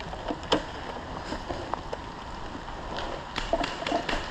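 Wind rumbling on the microphone, with scattered sharp clicks and knocks, the loudest about half a second in and several more in the last second and a half.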